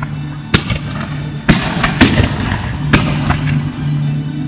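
Fireworks display going off: a string of sharp bangs, about five in four seconds, at uneven intervals, as comets and rockets shoot up trailing sparks.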